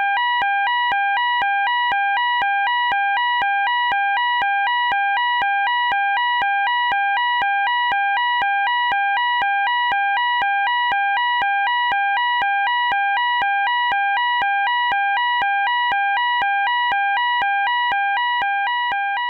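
Electronic fire alarm sounding a rapid two-tone warble, switching back and forth between a lower and a higher tone, loud and steady, beginning to fade near the end.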